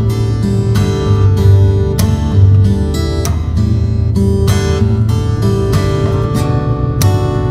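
Background music led by a strummed acoustic guitar, about two strums a second over a steady bass line.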